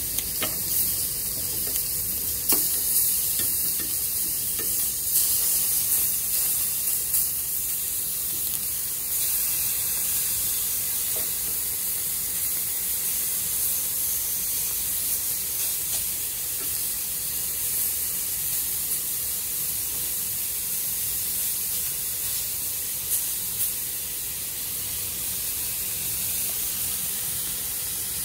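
Chicken pieces sizzling steadily in a hot ridged grill pan, with occasional clicks and scrapes of a utensil turning them, mostly in the first several seconds.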